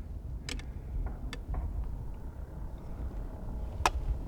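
Wind rumbling on the microphone, with a few small sharp clicks and one louder click near the end.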